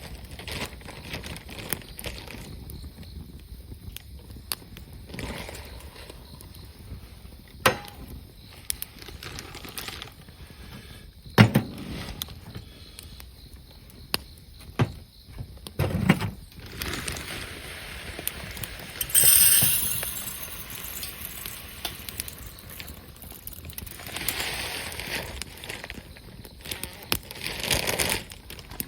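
Wood campfire crackling, with scattered sharp pops and a few louder ones, and stretches of rustling hiss.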